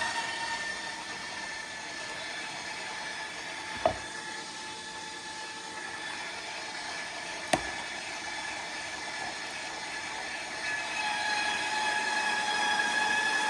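KitchenAid stand mixer motor running with a steady whine, driving a rotary grater attachment that is shredding a block of frozen cheese. Two sharp knocks come about four and seven and a half seconds in, and the running grows louder again near the end.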